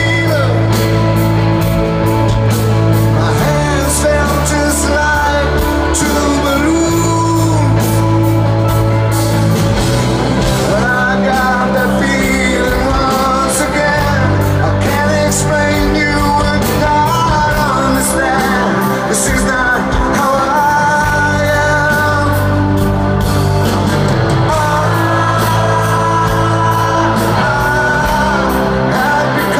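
Live rock band playing a slow song through a stadium PA, heard from the crowd: long held bass notes, steady cymbals and sung lines over the top.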